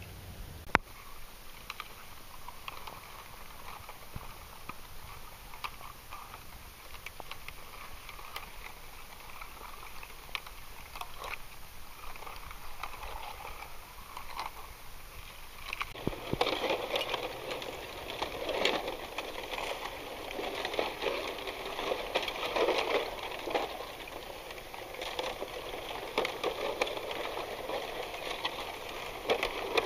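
Crackling, pattering water noise picked up underwater by a submerged waterproof camera, with a sharp click about a second in. It grows louder and busier about halfway through.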